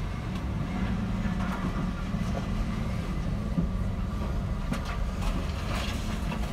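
Van driving slowly over a muddy yard, heard from inside the cab: a steady low engine and road drone.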